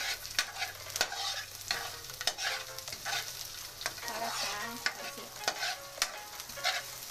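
A metal spatula scraping and knocking against a wok while chopped onion and garlic sizzle in hot oil, with frequent sharp clicks over a steady hiss.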